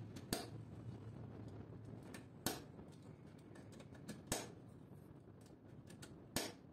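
Plastic screw terminal blocks snapping onto a metal DIN rail one at a time: four sharp clicks about two seconds apart, with fainter ticks of handling between.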